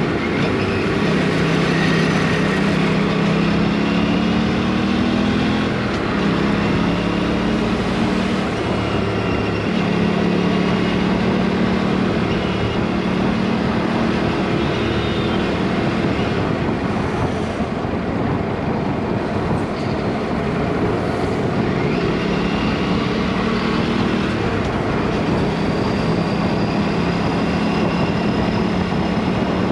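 Aprilia superbike engine with the exhaust's dB killer removed, pulling through the gears: the engine note climbs in pitch and drops back at each shift, again and again, over steady rushing wind noise.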